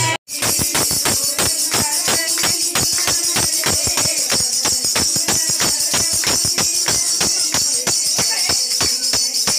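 Devotional aarti music: a fast, even beat of hand claps and tambourine jingles, about five strokes a second, over a steady sustained tone.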